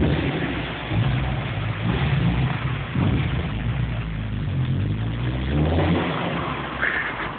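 Volkswagen Golf III GTI's 115 PS four-cylinder engine being revved in several throttle blips, the revs rising and falling back between them.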